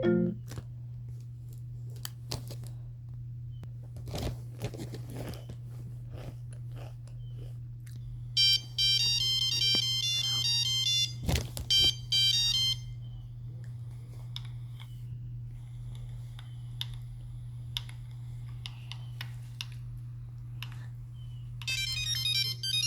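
Scattered clicks and taps, then a short ringtone melody played as high, stepped phone beeps for about four seconds, a few faint beeps, and another beeped ringtone melody starting near the end: Apple iPhone ringtones rendered as Nokia phone beeps. A low steady hum runs underneath.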